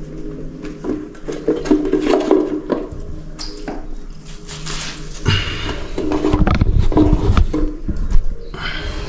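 Chopped carrot pieces being picked up off a metal baking tray and dropped into a cooking pot: scattered light knocks and clatters.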